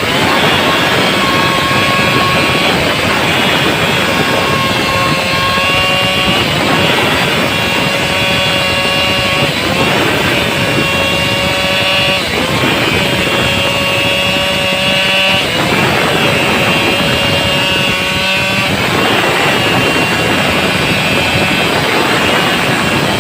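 Stihl chainsaw engine running at full throttle, its pitch sagging and recovering about every three seconds as the chain bites into the cut and frees up again.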